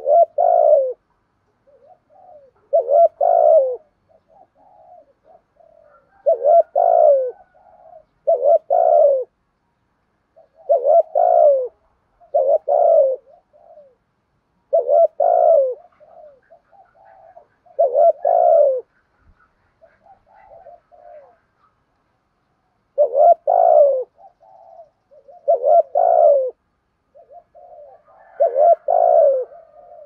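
Spotted dove cooing: loud coo phrases repeated every two to three seconds, with softer, lower coos between them and one longer pause about two-thirds of the way through.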